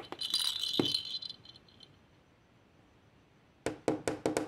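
Plastic ball rattle toy jingling and rattling as a cat bats it, for a little over a second. Near the end comes a quick run of about five sharp clicks.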